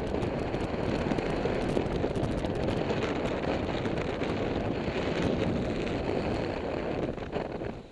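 Airflow buffeting the camera microphone in paraglider flight: a loud, steady rush of wind noise, with faint rattles mixed in, that drops away suddenly just before the end.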